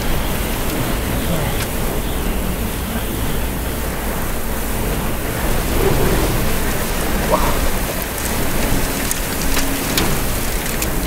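Strong, gusty wind from a thunderstorm's rear-flank downdraft, a loud steady rush of noise with a few sharp ticks mixed in.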